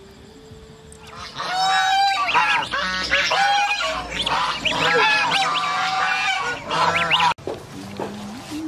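A flock of domestic geese honking, many loud overlapping calls starting about a second in and cutting off suddenly near the end.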